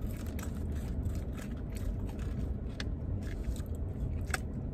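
Crispy french fries being chewed, heard as scattered short crunches and mouth clicks over a steady low hum.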